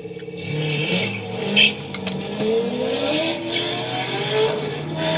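Cars accelerating hard from a standstill, engines revving with their pitch rising twice, with a brief loud sound about a second and a half in.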